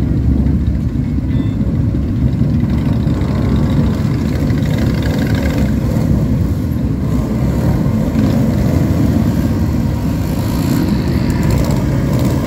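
Low, steady rumble of many motorcycle and trike engines as a slow column rides past.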